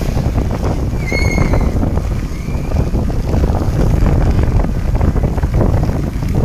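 Loud rushing of a rain-swollen river, with wind buffeting the microphone. A short high-pitched tone sounds about a second in.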